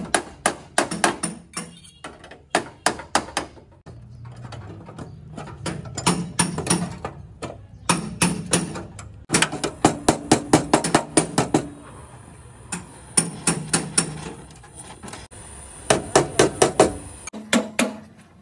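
Hammer blows on the sheet-metal body shell of an accident-damaged Toyota Hilux, struck in quick runs of about four blows a second with short pauses between.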